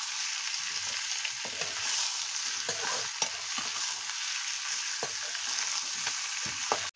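Chicken curry frying and sizzling in a pan while it is stirred, with frequent short scrapes and knocks of the stirring spoon against the pan. The sound cuts off suddenly at the very end.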